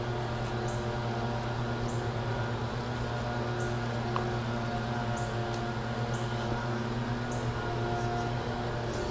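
A steady machine-like hum made of several fixed low tones, with short high chirps repeating about every second or so.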